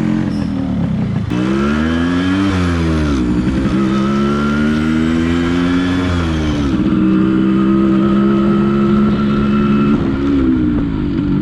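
Yamaha RX135 two-stroke single-cylinder motorcycle engine pulling away. The revs climb and drop with each gear change, then the engine settles into a steady pitch at cruising speed.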